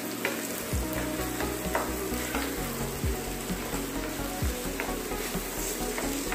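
Mashed boiled potatoes sizzling in hot oil in a frying pan as they are stirred and pressed with a wooden spatula, with short scrapes and knocks of the spatula against the pan every second or so.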